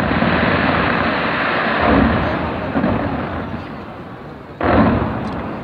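Large fireworks display: a continuous dense barrage of shells bursting, with a loud bang about two seconds in and another sudden loud burst near the end.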